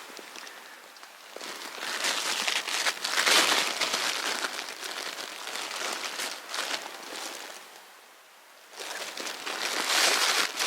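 Rustling, crinkling noise in two long spells: one from about a second and a half in to about seven seconds, and another starting near nine seconds.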